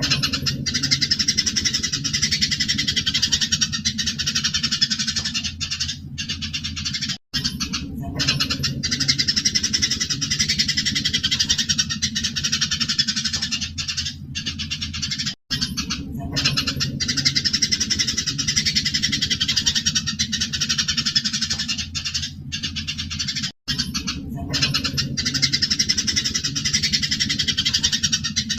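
Eurasian tree sparrows chattering and chirping fast and without pause, in the agitated fighting calls used to tutor songbirds. The recording loops about every eight seconds, with a brief cut at each join, over a low steady hum.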